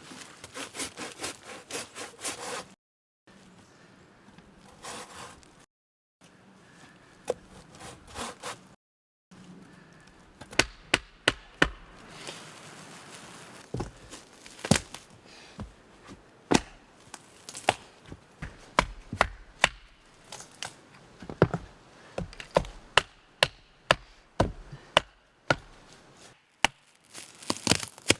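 Hand tools working wood: quick back-and-forth saw strokes at first, then, after a few abrupt breaks, a steady series of sharp single blows on wood about once a second.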